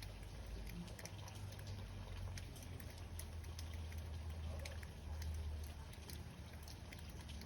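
Light rain during a passing thunderstorm: scattered drops tapping irregularly, over a low, steady rumble.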